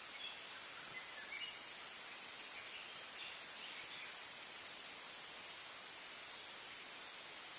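Forest ambience: a steady high insect drone over the trail camera microphone's hiss, with a few faint chirps about a second in and again around three to four seconds. The elephant's steps are not heard.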